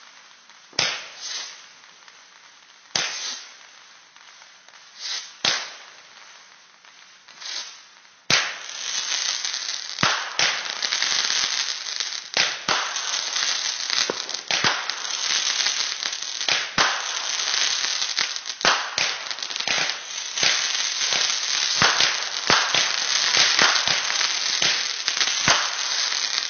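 Fireworks going off: a few separate sharp bangs a couple of seconds apart, then about eight seconds in a sudden dense, continuous crackling with frequent bangs that keeps going.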